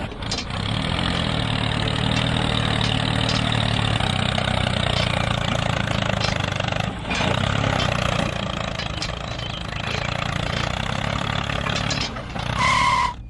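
Mini tractor engine running steadily, dipping briefly about seven seconds in. A short high beep sounds near the end.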